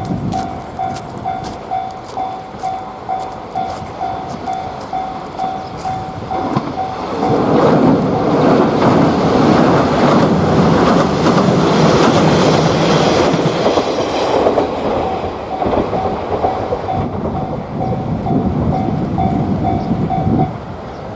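A Japanese railway level-crossing warning bell rings in a steady 'kan-kan' rhythm of about two to three strokes a second. About seven seconds in, a diesel train passes loudly for some seven seconds and covers the bell. The bell is heard again afterwards and cuts off shortly before the end, as the crossing clears.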